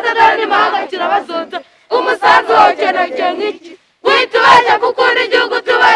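A group of schoolchildren chanting together in unison, loud, in three phrases with short breaks between them.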